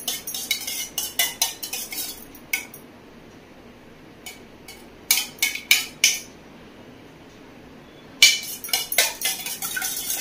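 A spoon beating raw eggs in a stainless steel bowl, clinking rapidly against the metal. The strokes come in spells: a run at the start, a short burst about five seconds in, then fast beating again from about eight seconds in.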